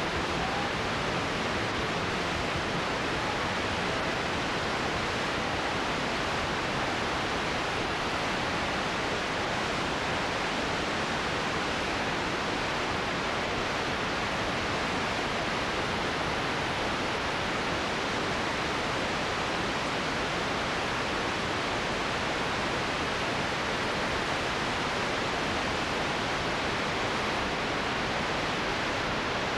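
Steady, even static hiss from an analog television tuned to a channel with no signal: the station has shut off its transmitter, leaving only noise.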